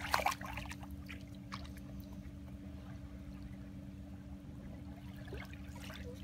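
Gentle lapping and trickling of shallow seawater at the shoreline over a low, steady background rumble, with a brief splash right at the start.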